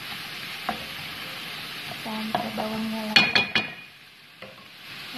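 Minced chicken and diced shallots sizzling as they fry in a pan and are stirred. A little after three seconds in, a few sharp metallic clanks of the utensil against the pan, after which the sizzle briefly dies down before picking up again.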